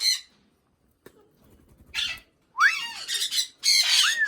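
Cockatiels squawking: a harsh screech, a short lull, then from about two seconds in a run of loud harsh squawks mixed with whistled calls that rise and fall.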